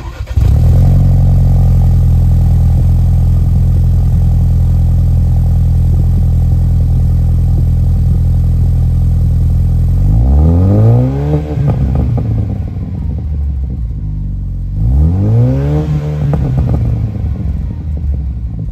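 A 2021 Ford Bronco's engine starts abruptly and runs loud and steady through its new MBRP 3-inch stainless cat-back exhaust with a single high-clearance rear-exit tip. About ten seconds in, and again about fifteen seconds in, the engine is revved, its pitch climbing and falling back each time.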